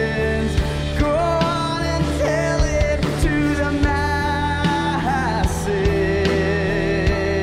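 Live band music: an acoustic guitar strummed with a drum kit keeping a steady beat, and a man's voice singing a melody with held notes.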